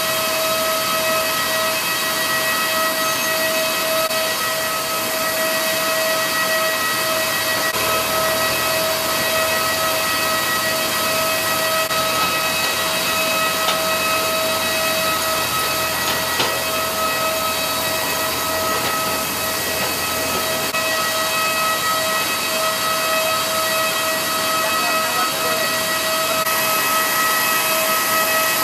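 Steady turbine whine with overtones over a loud, even hiss, as from a parked airliner on the apron. A low rumble joins in from about eight seconds and fades out after about twenty.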